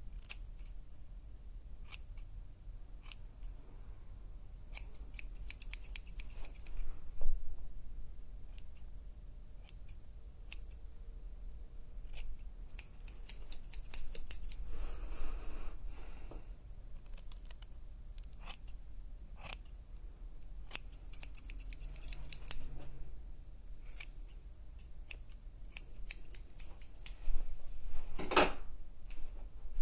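Irregular sharp clicks and snips in small clusters, like scissors cutting, with a louder rasping burst near the end.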